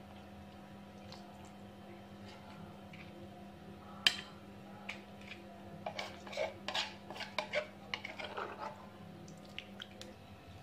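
Metal spoon clinking and scraping against a plate and a mortar as papaya salad is served out: one sharp clink about four seconds in, then a run of small clinks and scrapes.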